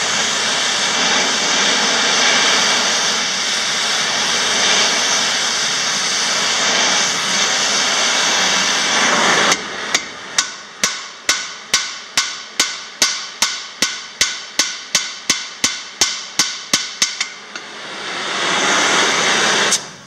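A gas torch roars steadily while heating rivets. About halfway through it stops and a hammer strikes about twenty ringing blows on metal, two or three a second, hot-riveting steel strakes onto a miniature traction engine's rear wheel rim. The torch roar starts again near the end.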